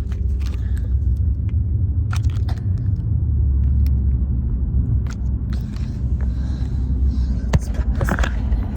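Steady low road rumble inside a moving car's cabin. Over it come scattered crinkles and clicks of a biscuit package being opened, clustered around two, five and eight seconds in.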